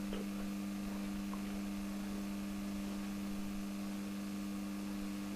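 A steady, low electrical hum of two constant tones, with a faint hiss behind it.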